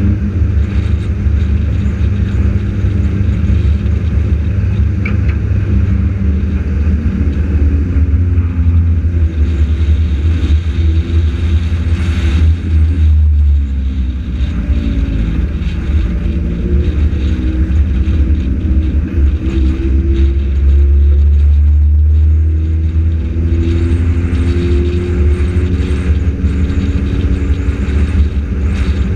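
In-car sound of a front-wheel-drive compact race car's engine at racing speed. The revs drop twice as it lifts for the corners and climb again down the straights.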